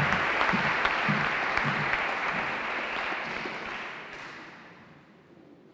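Audience applauding, the applause fading away steadily over the last few seconds.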